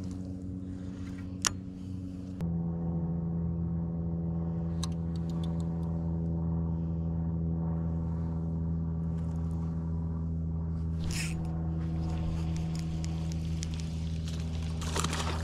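A boat motor humming steadily; about two seconds in it gets louder and fuller and then holds steady. There is a sharp click about a second and a half in and a short hiss near the end.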